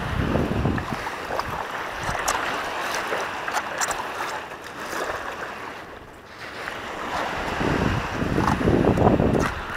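Stand-up paddleboard being paddled on calm sea: the paddle blade dipping and swishing through the water, with small splashes and drips. Wind buffets the microphone in low gusts at the start and again near the end.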